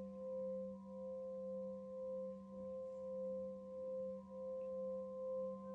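Sustained singing-bowl meditation tone: several steady pitches hum together, slowly swelling and fading in loudness.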